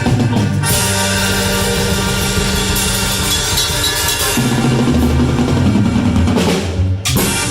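Cumbia band music with the drum kit to the fore over a sustained bass line, with a short break about seven seconds in.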